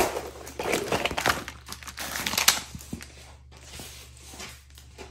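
Clear plastic sleeve around a rolled canvas crinkling and rustling as it is handled and unwrapped. The crinkling is loudest in the first three seconds, then thins to quieter small rustles and ticks.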